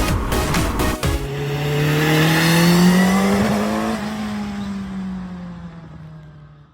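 Music with a beat stops about a second in. A vehicle engine then drones, its pitch rising for about two seconds, then slowly falling and fading out, like a vehicle passing by.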